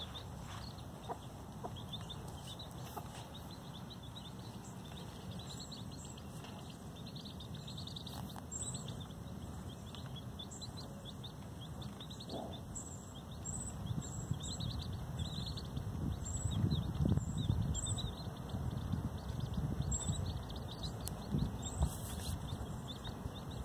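Chickens clucking, with short high chirps repeating throughout. A low rumbling noise grows louder from about halfway.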